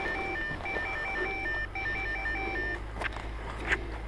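A quick pattern of short electronic beeps at a few different pitches, lasting about three seconds, followed by two sharp clicks near the end.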